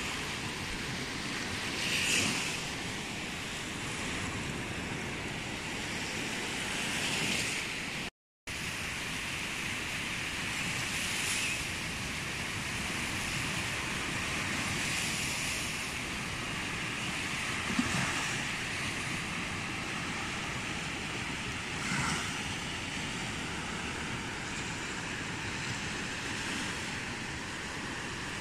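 Small sea waves breaking and washing up onto a sandy beach: a steady surf hiss with a few slightly louder swells. The sound drops out for a moment about eight seconds in.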